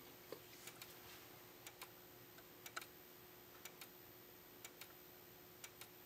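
Faint ticks from the flash tubes of two System Sensor SPSR speaker strobes firing. Each strobe flashes about once a second, and the two are out of step, so the ticks come in pairs a fraction of a second apart. Behind them is near silence with a faint steady hum.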